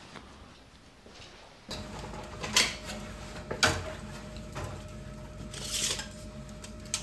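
A few sharp clinks and knocks of tools being handled, with a short hiss near the end, over a steady hum.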